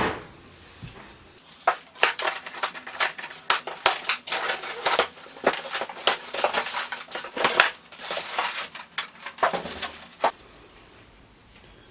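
Cardboard shipping box and packing being opened by hand: a run of crackling, tearing and scraping that starts about a second and a half in and stops near the end.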